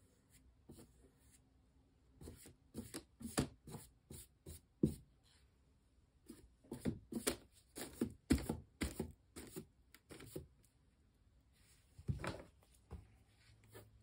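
Short irregular strokes of a painting tool rubbing and scraping paint onto a canvas, in two runs of quick strokes with a last stroke near the end.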